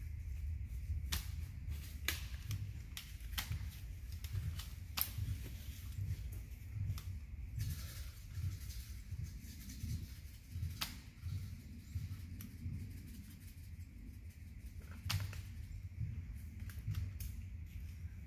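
Scattered sharp clicks, about one every second or two, over a steady low rumble on the microphone.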